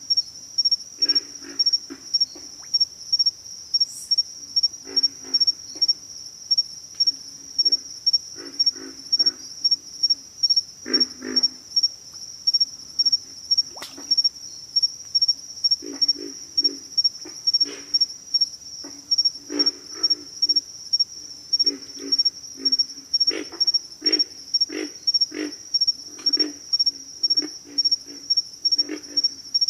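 Pig frogs grunting: many short, low, gruff calls in irregular runs, more frequent in the second half. Behind them is a steady high-pitched insect trill.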